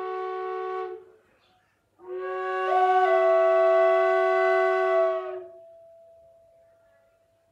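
A wooden Native American-style drone flute is played, with two notes sounding at once: a steady drone under a melody note. A held note ends about a second in. After a short pause comes a louder long note whose upper pitch steps up once, then slowly fades away.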